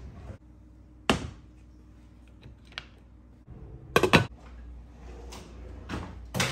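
Kitchen clatter from a pot and its glass lid: a few sharp knocks and clinks as the pot is set on the stovetop and the lid goes on. The loudest is a quick cluster about four seconds in.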